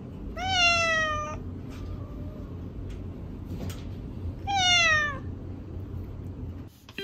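A domestic cat meowing twice, a few seconds apart, each meow about a second long and rising then falling in pitch.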